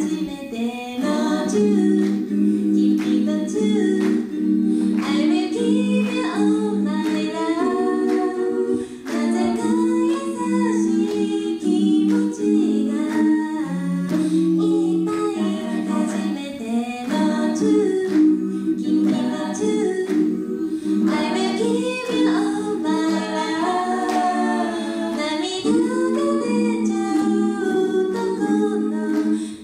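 Five-voice female a cappella group singing in harmony into handheld microphones, held chords under a moving melody, over a steady beat.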